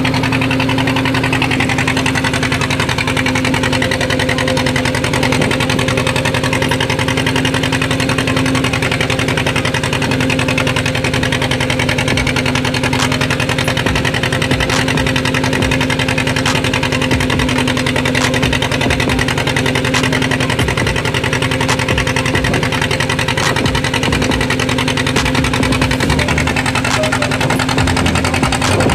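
Fishing boat's engine running steadily at an even speed, a constant low drone with a fast, regular chug.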